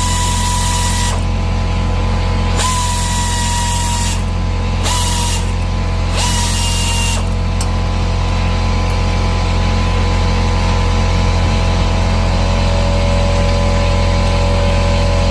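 A power tool runs steadily, spinning out the front sway bar bolt on a 1968 Chevy Nova. Its pitch shifts briefly about four times in the first seven seconds as the load changes.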